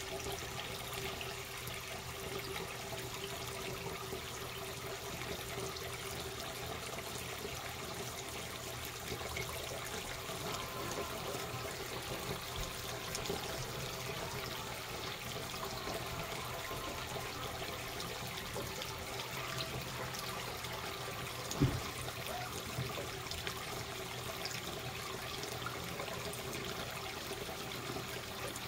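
Kitchen tap running a thin, steady stream of water into a mug in a stainless steel sink, trickling and splashing. One short knock comes about three-quarters of the way through.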